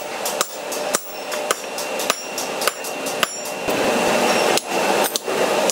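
Hammer blows forging a red-hot axe head on a steel anvil, about two strikes a second, each with a bright metallic ring.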